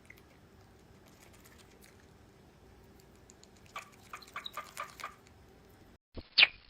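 A quick run of light taps lasting about a second and a half, then, after a brief drop to silence, one sharp knock near the end.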